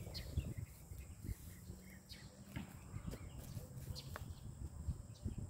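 Quiet outdoor ambience with a few faint, short bird chirps scattered through it and some soft low knocks.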